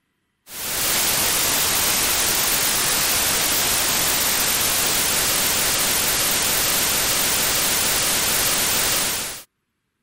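Synthetic white noise played back as a loud, steady hiss, starting about half a second in and cutting off near the end. The first half is ordinary random noise; the second half is one short noise segment repeated over and over, so its periodic repetition differs only subtly from the random part.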